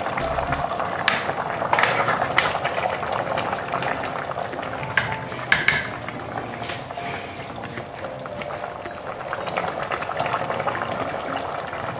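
A pot of chicken adobo simmering and bubbling while a plastic ladle stirs through it. The ladle gives a few short scrapes and knocks against the pot, the sharpest about five and a half seconds in.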